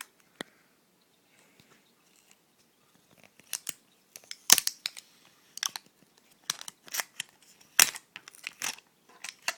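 Stiff plastic packaging crackling and snapping as the plastic base piece stuck to the bottom of an Apple Magic Mouse is pried off: a few faint clicks, then a string of sharp, irregular crackles from about three and a half seconds in.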